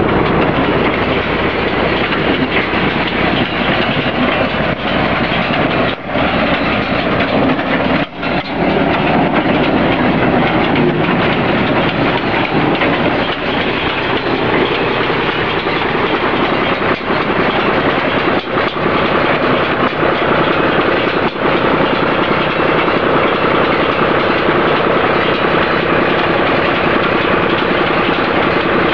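Welger WSA 350 small square baler at work behind a tractor: the tractor engine running under load and the baler's pick-up and plunger making a steady, loud mechanical clatter.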